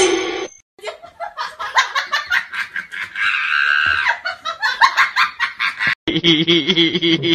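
A dog chewing a squeaky rubber toy, setting off a rapid run of squeaks. After a sudden break near the end, a steady pitched whine follows.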